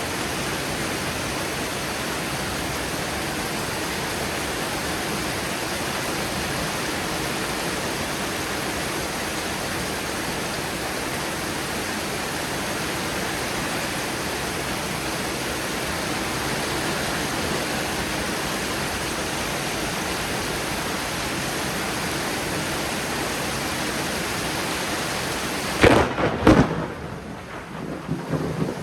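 Heavy thunderstorm rain pouring steadily. Near the end a sudden loud crack of close thunder, with a short rumble after it.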